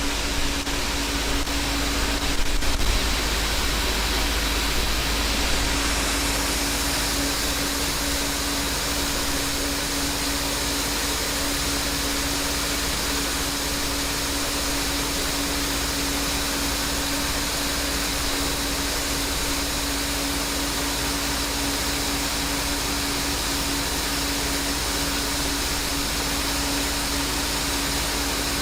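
Farm machine's engine running steadily under an even rush of noise, with one constant hum. A few light knocks come in the first three seconds.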